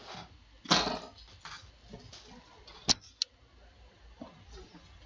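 Cardboard trading-card box handled on a cloth-covered tabletop: a short rustling scrape about a second in, then two sharp clicks a fraction of a second apart about three seconds in.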